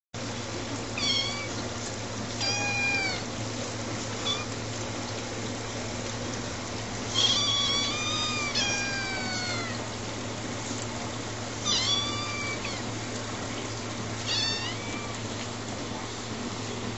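Eleven-week-old kittens meowing: about seven short, high-pitched meows a few seconds apart, some longer ones falling in pitch at the end.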